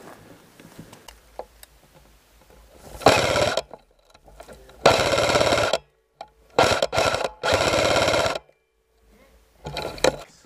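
Airsoft electric rifle firing in fully automatic bursts, a fast rattle of shots repeated five times with short pauses between.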